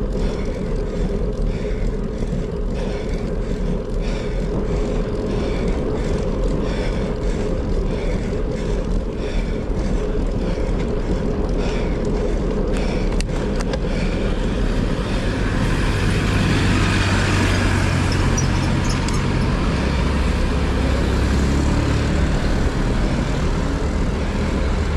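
Wind and road noise on a moving rider's microphone, with motor-vehicle traffic around. In the second half the traffic grows louder, with a vehicle engine humming close by.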